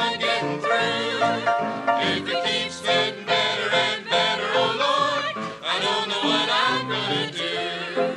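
Pentecostal church choir singing a gospel song, with voices wavering on sustained notes over a steady rhythm.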